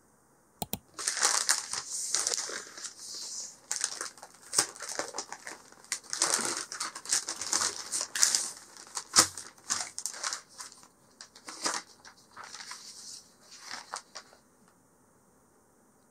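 Stiff kraft-paper bag crinkling and rustling in irregular bursts as it is handled and opened and a book is slid out. It starts about a second in and stops shortly before the end.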